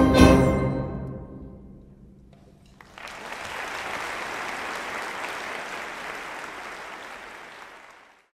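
A symphonic band's final chord rings and dies away in the hall reverberation. About three seconds in, the audience starts applauding, a steady clapping that fades out near the end.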